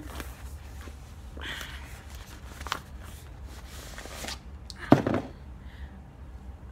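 Rustling and handling as a soft knit wrap is unfolded and shaken out, with a few small clicks and one sharper knock about five seconds in.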